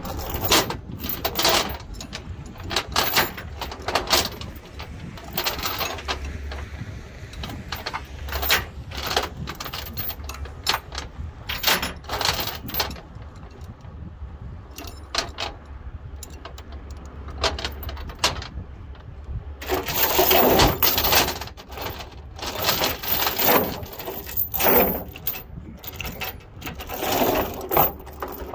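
Steel tie-down chain clinking and rattling against itself and the wooden trailer deck as it is pulled and wrapped around the truck's tow shackle, in irregular bursts, with a longer, louder run of rattling about twenty seconds in.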